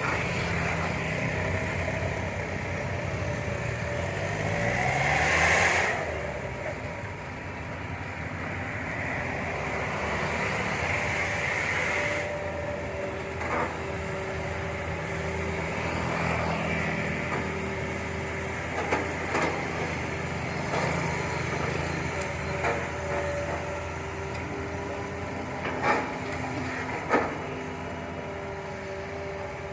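Hitachi hydraulic excavator's diesel engine running steadily while it digs, with a louder hiss of the hydraulics working about five seconds in and again around ten to twelve seconds, and several sharp knocks in the second half.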